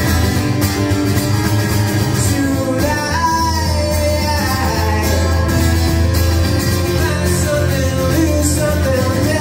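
Live solo performance: a steadily strummed acoustic guitar with a man singing over it into a microphone.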